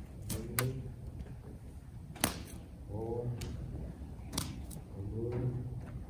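A horse-training stick (whip) swished and slapped against the sand in sharp, irregular snaps, about eight in all, to get a horse used to the whip.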